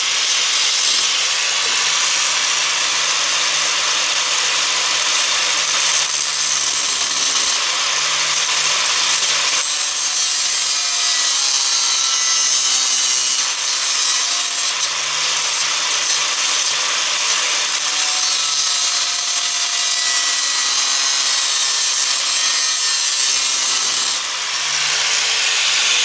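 Small hand grinder grinding down the head of a steel bolt, a steady high-pitched hiss that runs on without pause and eases off briefly near the end.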